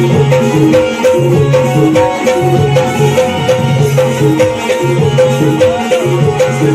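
Shakti-tura folk music playing loud: hand drums beat a steady rhythm under a short melodic phrase that repeats over and over.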